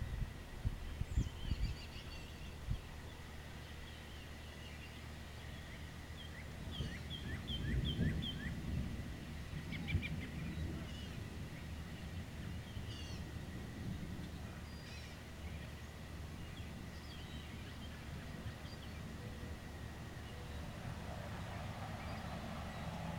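Songbirds chirping and calling over a low outdoor rumble, with a quick run of repeated chirps about seven seconds in. A few soft thumps come early, and a broader rushing noise swells near the end.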